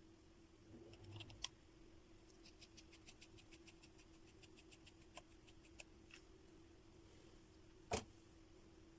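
Faint clicks and taps of small hand tools working on a phone during a battery replacement, with a quick run of light even ticks about two seconds in lasting about three seconds and a sharper click near the end, over a steady faint hum.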